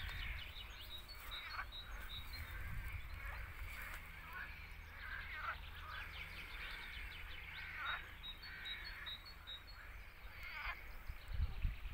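Birds calling outdoors: repeated short calls that slide downward in pitch, and series of quick high notes, over a steady low rumble.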